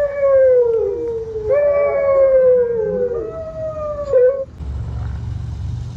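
A custom horn sound file played through the 2021 Tesla Model Y's external Boombox speaker in place of the horn: a loud pitched sound in three long notes, each falling in pitch, stopping about four and a half seconds in.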